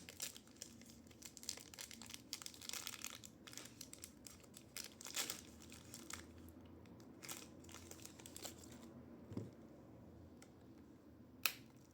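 Packaging crinkling and tearing as it is handled and opened, with scattered small clicks and one sharp click near the end.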